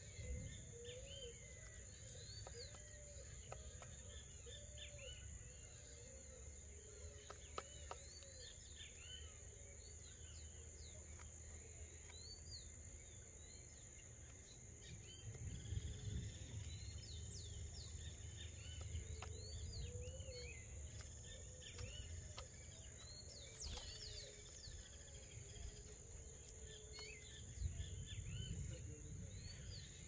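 Faint backyard birdsong: many short high chirps and a repeated lower arched note from several small birds, over a steady high-pitched tone. Low rumbles swell about halfway through and again near the end.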